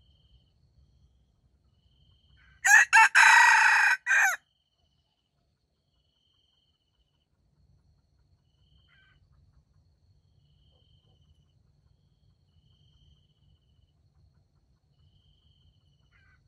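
A red junglefowl rooster crows once, about three seconds in: a short crow broken into a few parts. Faint insect chirps repeat at a steady pace in the background.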